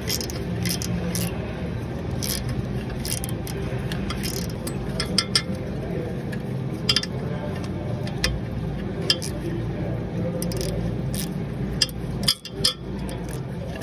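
Hand tool working the bolts behind a forklift engine's cooling fan: irregular metallic clicks and scrapes, several sharper clinks among them, over a steady low hum.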